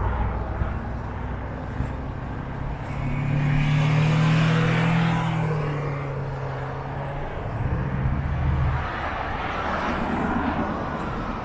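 Wind rushing over the microphone of a moving bicycle, with a passing engine hum that swells and fades between about three and seven seconds in, and comes back briefly about eight seconds in.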